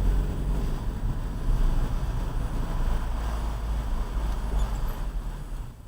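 2015 Volkswagen Golf GTI (Mk7) rolling at very low speed, a steady low rumble of road and car noise. A couple of faint, brief high squeaks come near the end: brake squeal that shows up at very low speeds after starting and then goes away.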